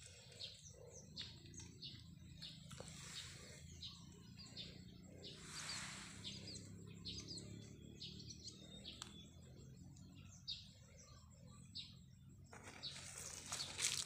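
Faint bird chirps, many short calls scattered throughout, over a low steady rumble. A brief rush of noise comes about halfway through, and a louder rustling noise near the end.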